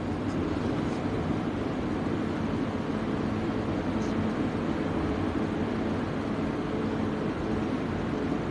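Steady hum of a large prayer hall's ceiling fans and air conditioning, with no voice, during the silent bowing of congregational prayer.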